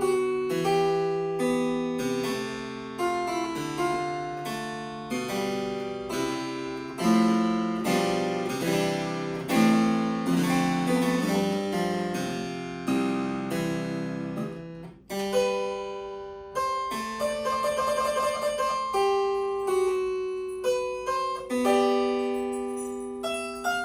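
Harpsichord music: plucked notes in quick succession, each fading fast, with a brief break about fifteen seconds in before the playing goes on.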